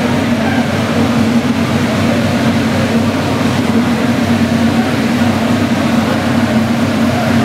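Dirt track race car's engine running steadily on a chassis dynamometer, a loud, even drone that holds one pitch without revving.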